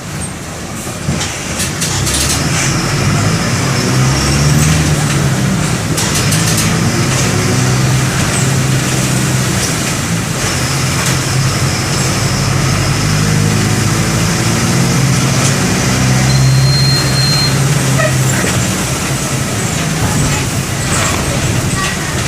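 Mercedes-Benz OM-924 LA four-cylinder inline turbodiesel of an OF-1722M bus running under way, its pitch rising and easing off twice as it pulls through the gears. A few clicks and a brief high-pitched tone are heard along with it.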